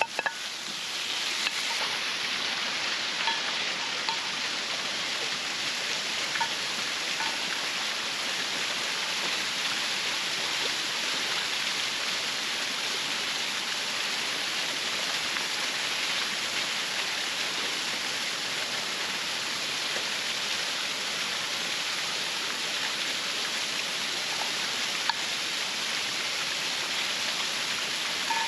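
Waterfall: a steady, even rush of falling water that swells up over the first couple of seconds and then holds, with a few faint ticks over it.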